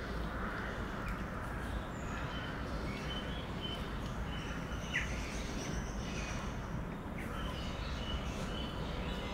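Outdoor ambience: a steady low background hum with small birds chirping now and then, one louder, sharper chirp about halfway through.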